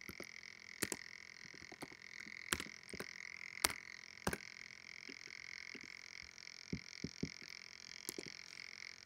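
Faint typing on a computer keyboard: irregular key clicks, a few louder taps in the first half, over a steady hiss.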